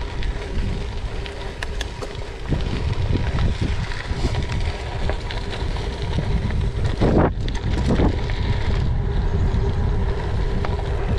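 Wind buffeting the microphone over the rolling crunch of tubeless Schwalbe G-One gravel tyres on a gravel path, with scattered small clicks of grit. A short pitched sound comes through about seven seconds in.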